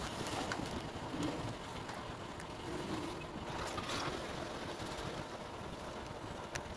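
Steady low rumbling background noise, such as wind or handling on the microphone. It has a few faint clicks and a short, louder rustling knock about four seconds in, as the camera is bumped.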